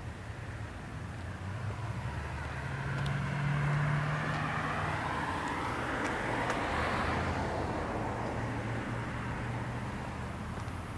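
A motor vehicle passing by: a low engine hum and rushing noise that swell to a peak mid-way and then fade.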